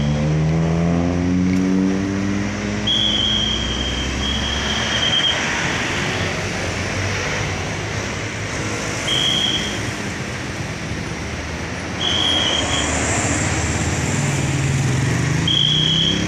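A traffic controller's whistle blown in five short, steady high blasts, two of them back to back about three to four seconds in, over continuous road traffic. A car engine speeds up and pulls away in the first two seconds, and another engine, a motorcycle's, rises near the end.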